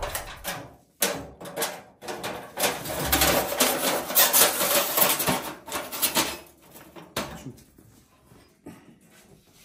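Metal clattering and knocking as a metal cover is fitted over a steel rack of knife blades, the blades rattling as they are handled. The knocks come irregularly and die away about seven seconds in.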